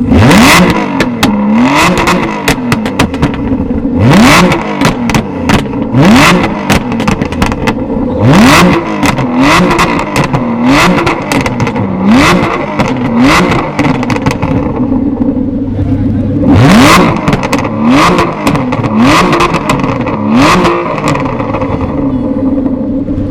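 Aston Martin CC100's V12 engine idling and being blipped again and again, about a dozen quick revs that rise sharply and drop back to idle, with crackles and pops from the exhaust as the throttle closes.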